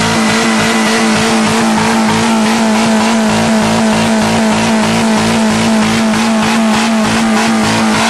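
A 1995 Geo's 1.3-litre four-cylinder engine running flat out at steady high revs, with an unchanging pitch. It is being held at full throttle deliberately to blow the engine.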